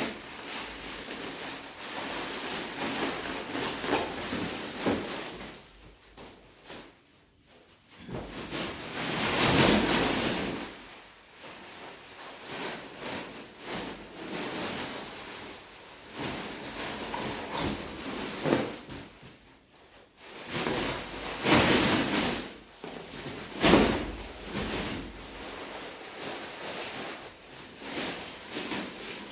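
Mattress packaging being handled and unwrapped: irregular rustling and crinkling in uneven bursts, with short quieter pauses.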